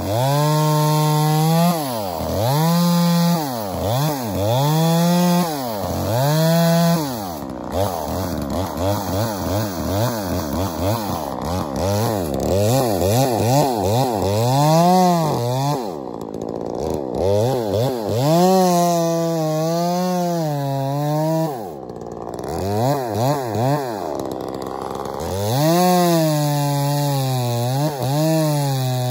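Ported two-stroke Poulan Wild Thing chainsaw cutting into a rotten stump at ground level. The engine revs up and drops back again and again, and sags to a lower, wavering speed during the longer cuts.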